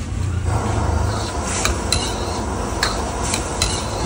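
Metal ladle stirring soup in a wok, clinking and scraping against the pan a handful of times over a steady rushing background noise.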